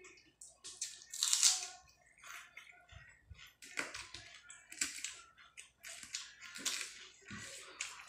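Fingers mixing and mashing rice with dal and curry on a plate: irregular wet squishing and crackling, with the sounds of eating by mouth. The loudest stretch comes about a second in.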